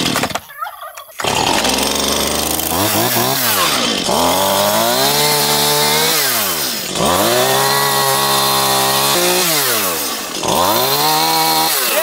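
Chainsaw starting up about a second in, then cutting tree branches. It runs at full speed in three long spells, its pitch dropping away and climbing back between them.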